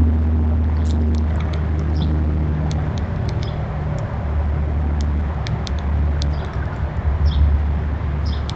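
A steady low rumble, typical of distant road traffic or wind on the microphone, with short high bird chirps and scattered sharp clicks every second or so.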